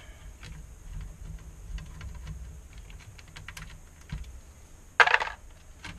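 Small scattered clicks and ticks of a screwdriver working out the tiny screws on an LCD monitor's inverter board, over a low hum. A sharper clatter comes about five seconds in, as the tool is put down.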